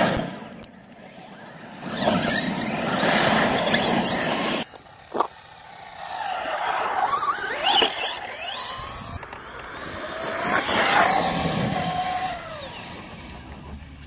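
Electric RC trucks driving hard on loose gravel and asphalt: the motors whine, rising and falling with throttle bursts, over the hiss of tyres spitting gravel. The sound comes in three spells, two of which cut off abruptly, with a sharp click about five seconds in.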